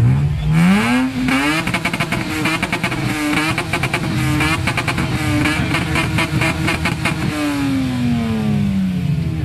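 Exhaust of a silver first-generation Lexus IS saloon revved hard while stationary. The engine climbs steeply in the first second and a half and is held high with a wavering, rapid stutter, then falls back steadily over the last two seconds.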